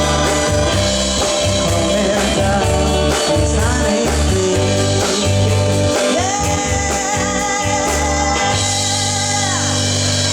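A rock band playing with a singer, closing out the song: a long held sung note from a little past the middle, falling off near the end, over guitar, bass and drums.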